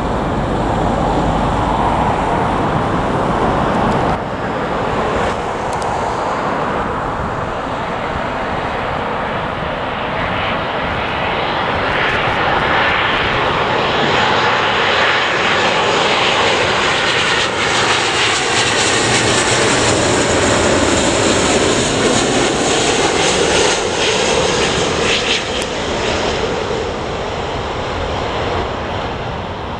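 Jet airliner on approach to land, passing by with its engine noise swelling, loudest about two-thirds of the way through, then easing off.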